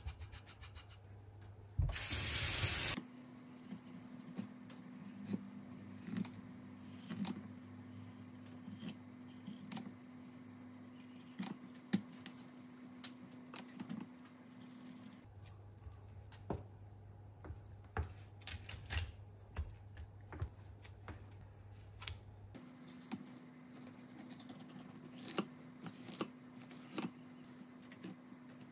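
A kitchen tap runs briefly about two seconds in. After that come the quiet, scattered clicks and scrapes of a kitchen knife filleting a mottled spinefoot on a wooden cutting board, over a low steady hum.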